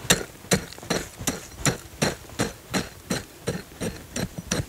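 A short-handled digging tool chopping into dry dirt in a steady series of strikes, nearly three a second, digging out the bed for a wild dog trap.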